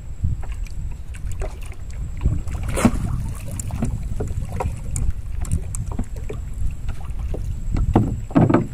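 A hooked fish splashing at the water's surface as it is played from a small boat, with a louder splash about three seconds in and again near the end. Underneath are steady wind rumble on the microphone and scattered light knocks.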